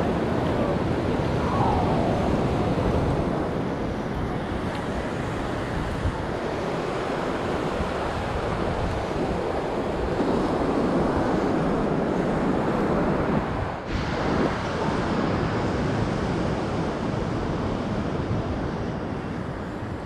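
Ocean surf breaking and washing up a sandy beach in a steady wash, with wind rumbling on the microphone.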